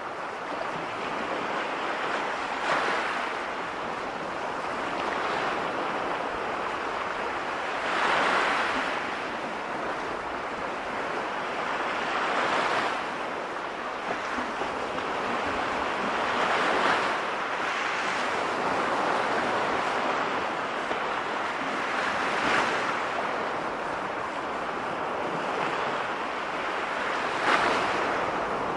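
Sea waves breaking on a shore: a steady surf hiss that swells with a wave about every four to five seconds.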